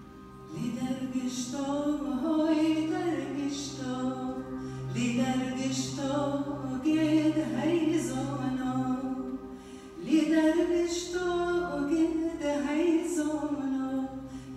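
Slow, ornamented singing over a steady held drone, in a chant-like style. The singing starts about half a second in, pauses briefly just before ten seconds, then resumes.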